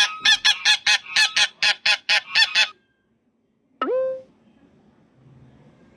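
Goose honking: a quick run of short, nasal honks, about five a second, then after a pause one longer call that rises and holds.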